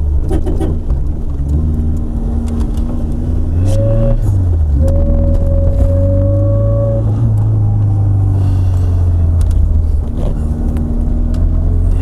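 Tofaş Doğan SLX's single-point-injection four-cylinder engine, running on LPG, heard from inside the cabin as the car drives and accelerates. The engine note rises and then drops about four seconds in, as at a gear change, then pulls steadily on.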